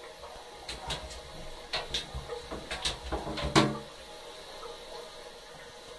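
A kitten scrabbling about in a dry enamel bathtub: a scatter of light knocks and scrapes over about three seconds, the loudest knock about three and a half seconds in.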